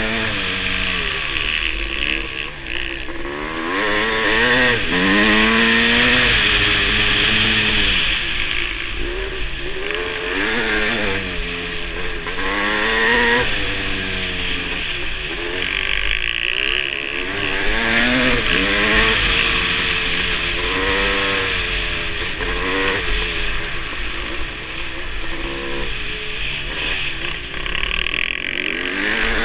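Kawasaki KX500 two-stroke single-cylinder engine racing on ice, revving up and backing off over and over, its pitch rising and falling every two to three seconds, over a steady hiss.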